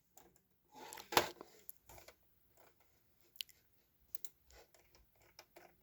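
Faint, irregular small clicks and taps with no speech, the loudest about a second in.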